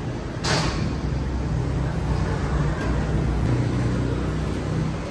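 A steady low rumble of background noise, with one sharp knock about half a second in.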